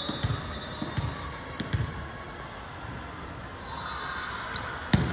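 A ball bouncing on a hard gym floor: three low thuds about 0.7 s apart in the first two seconds, then one sharp, loud smack of a hand on the ball near the end.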